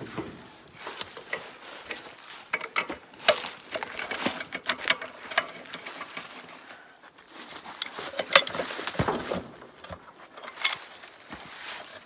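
Irregular metallic clicks and knocks of a wrench and hand tools working at the hub of a tractor's rear wheel, with the big tire being shifted and handled as the wheel is taken off.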